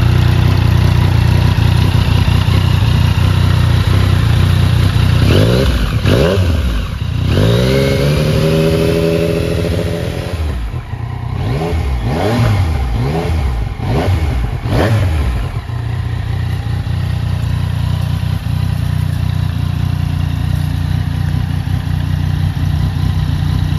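2017 Yamaha MT-09's three-cylinder engine, breathing through an aftermarket Lextek exhaust, idling and being revved. A quick blip comes about six seconds in, then a rev held for about two seconds, then several quick blips in a row before it settles back to a steady idle.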